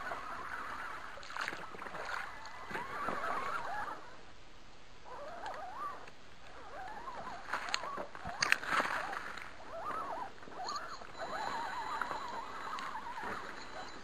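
Electric motors and gears of 1/10-scale Axial SCX10 RC rock crawlers whining, the pitch rising and falling with the throttle. A few sharp knocks come around eight seconds in.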